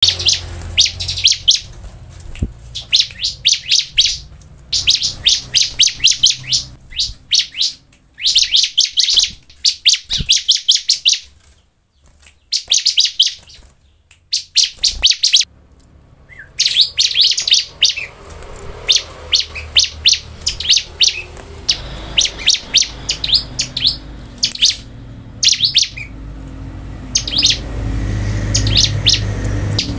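Ciblek (bar-winged prinia) singing hard: fast runs of sharp, high chirping notes, several a second, in bursts of a second or two with short breaks and a quieter spell about halfway through. A low rumble rises underneath near the end.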